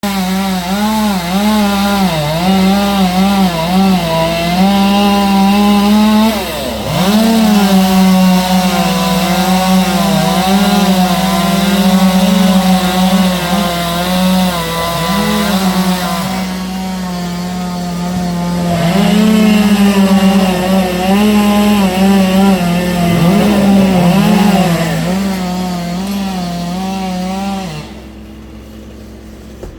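Gas chainsaw running at high revs and cutting wood, its pitch sagging and recovering under load, easing off for a few seconds midway before picking up again, then cutting off near the end.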